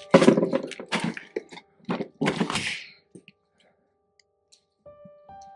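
Old metal briefcase handled and set down on a concrete window sill: several clunks and scrapes over the first three seconds, then quiet.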